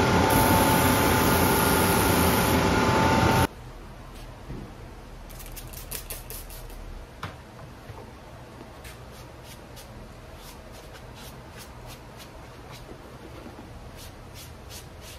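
Sanding belt of a Stanley Bostitch shoe finishing machine running loud and steady with a steady whine as a rubber boot sole is held against it, stopping abruptly about three and a half seconds in. After that, quiet rubbing with scattered light ticks as a small sponge is worked over the boot's leather upper.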